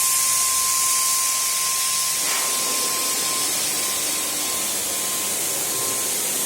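Paint spray gun running with a steady hiss and a steady high whine underneath.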